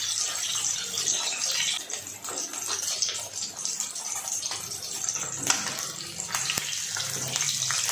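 Pieces of katla fish frying in hot oil in a kadhai: a steady sizzle with scattered crackles and pops.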